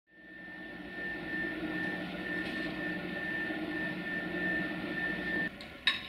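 A steady mechanical drone with a constant high whine, fading in over the first second and cut off suddenly about five and a half seconds in, then a sharp click.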